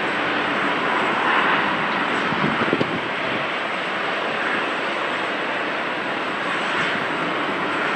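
Steady jet engine roar and hiss from a Boeing 777-200LR's GE90 turbofans running during pushback, with a few brief low thumps about two and a half seconds in.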